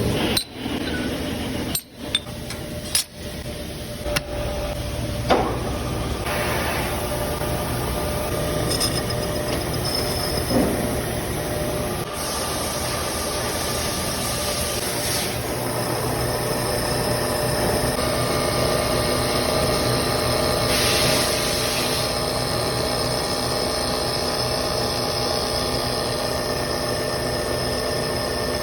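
Milling machine running and cutting metal: a steady machine noise with a steady whining tone, broken by a few sharp clicks and brief dropouts in the first five seconds.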